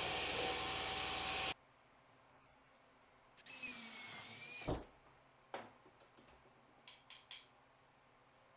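Belt grinder grinding a steel billet, cut off suddenly about a second and a half in. Then a cordless drill whines briefly with a wavering pitch as it bores into a piece of deer antler, ending in a thump, followed by a few light clicks and knocks.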